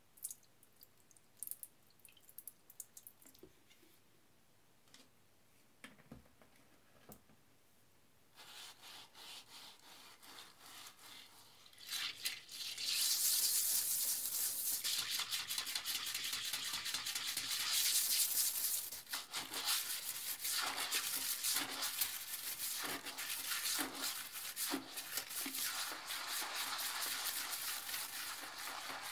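Liquid cleaner poured into a toilet bowl, with faint clicks, then a plastic toilet brush scrubbing the porcelain bowl through foamy water: rapid swishing strokes that turn loud about twelve seconds in.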